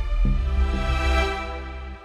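Soundtrack music: sustained chords over a deep bass, with a low hit just after the start, fading down near the end.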